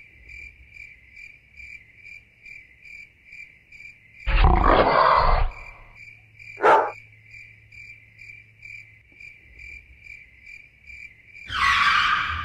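Crickets chirping in an even pulse about two or three times a second, with louder animal calls over it: a long call about four seconds in, a short sharp one a little before seven seconds, and another long call near the end.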